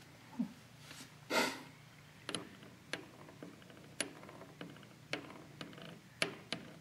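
Light metallic clicks, about one a second, as the steel gears and shafts of a Maico 500 two-stroke's gearbox are handled and turned by hand in the split crankcase. A brief rubbing noise comes about a second and a half in.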